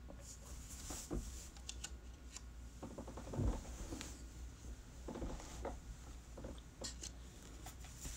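Faint off-camera handling noises: scattered small clicks and rustles, with one soft thump about three and a half seconds in, over a low steady hum.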